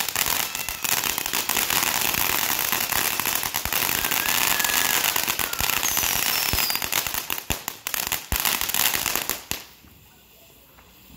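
Ground fountain firework spraying sparks: a steady loud hiss with many sharp pops. The pops come thick and fast near the end, and the fountain cuts off about nine and a half seconds in.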